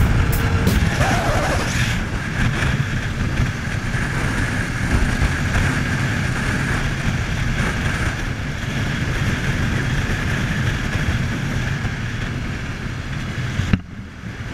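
Honda CBR250R's single-cylinder engine running steadily at riding speed, mixed with wind rushing over the microphone. The sound cuts out briefly near the end.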